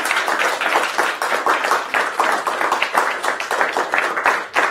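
Audience applauding, many hands clapping together without a break.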